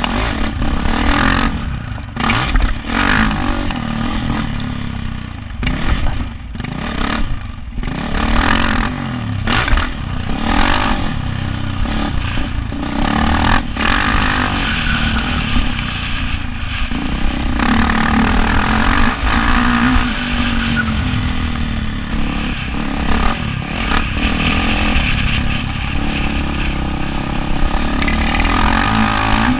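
Yamaha YZ450F dirt bike's single-cylinder four-stroke engine revving up and easing off again and again as it is ridden, with several short throttle cuts.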